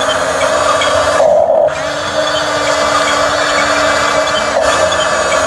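Remote-control toy bulldozer's small electric drive motors whirring steadily as it crawls on its tracks pushing gravel with its blade. The high part of the whir drops out briefly a little over a second in.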